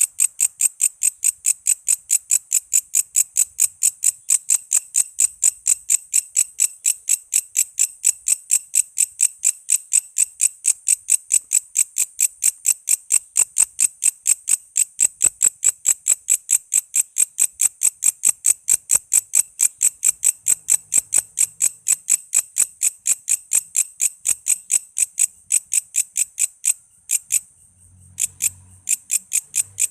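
A walang kece katydid singing: a loud, high-pitched train of short rasping pulses at about four a second, with a brief pause near the end.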